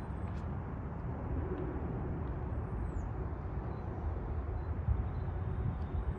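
Outdoor city ambience: a steady low rumble of wind and distant traffic, with a few faint, high bird chirps, one of them a short falling call about halfway through.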